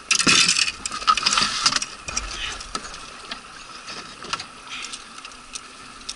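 Small clicks, knocks and rattles of fishing tackle being handled in an inflatable boat. They are densest in the first two seconds and sparse after that, over a steady hiss.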